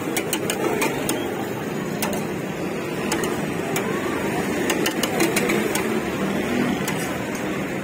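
Metal spatula clicking and scraping against a flat steel griddle in quick, irregular taps, over a steady background din.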